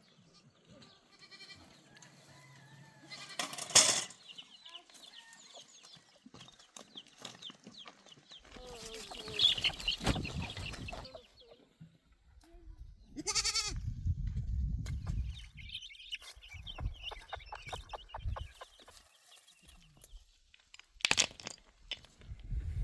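Goats bleating now and then, several separate calls, among the livestock of a camp with chickens clucking, and bursts of low rumbling noise between them.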